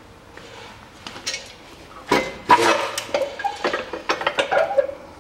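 Metal clanks and clinks as a reassembled coil-spring front strut is lifted out of the steel jaws of a spring compressor. Short ringing follows the knocks. The loudest knocks come about two seconds in, followed by a run of lighter ones.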